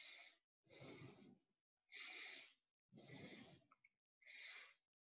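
A person's quiet breathing close to the microphone: five short breaths about a second apart.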